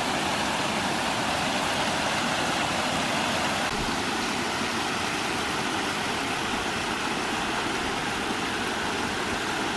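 Steady rush of creek water running at a beaver dam of sticks and mud, an even hiss with no change in level.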